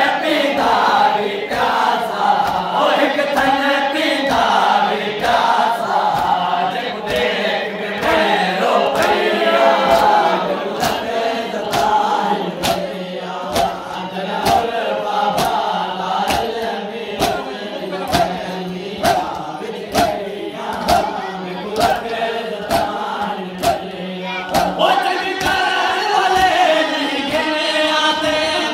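A crowd of men chanting a noha, a Muharram lament, in chorus, with rhythmic chest-beating (matam) keeping time at about one and a half strokes a second.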